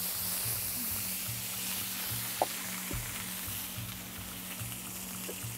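Tequesquite water poured onto a hot comal of sliced chilacayote squash, sizzling sharply as it hits and slowly easing off. A single light click sounds about halfway through.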